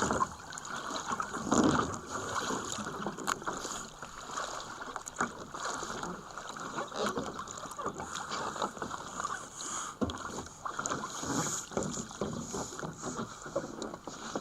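Water splashing and sloshing against a sea kayak's hull as a paddler clambers from the back deck into the cockpit, with many short knocks and bumps throughout.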